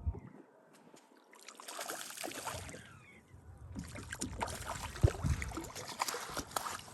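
Water splashing, with many small clicks and a sharp knock about five seconds in, as a hooked crappie is brought to the boat.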